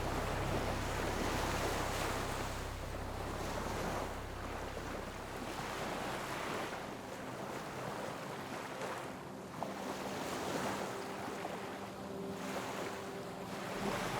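Ocean waves breaking and washing up on a shore, the surf swelling and fading every few seconds.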